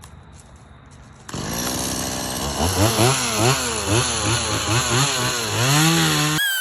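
Stihl MS 170 two-stroke chainsaw running, starting abruptly about a second in, its engine pitch rising and falling over and over as it revs and is loaded while carving a pine log. It cuts off suddenly near the end.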